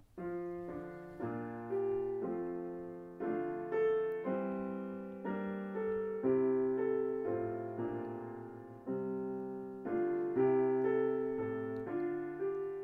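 Piano playing a slow hymn introduction in chords, each chord struck and left to ring and fade.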